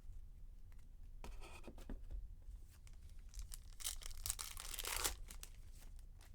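Wrapper of a baseball card pack being torn open and crinkled: a short rip about a second in, then a longer, louder tear at about four seconds.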